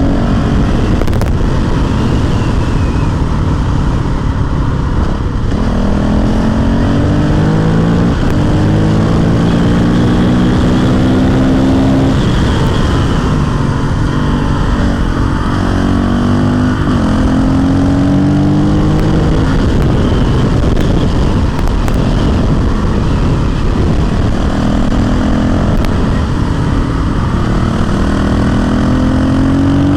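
Honda CRF450L single-cylinder four-stroke engine pulling hard under acceleration. Its pitch climbs and drops back several times as it shifts up through the gears, with wind rushing over the microphone.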